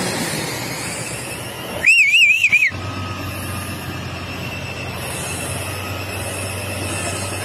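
Heavy truck engines running on a muddy track, with a short, shrill warbling whistle about two seconds in. A steady low engine hum carries on after it.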